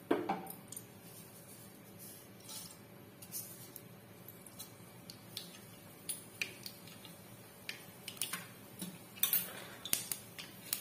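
Mustard seeds popping and spluttering in hot cooking oil in a kadai: scattered faint pops and crackles, coming thicker near the end as the seeds heat up.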